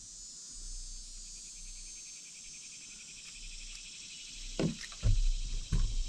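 Steady insect chirping with an even, fast pulse. A few dull knocks and thumps come near the end, the loudest sounds here.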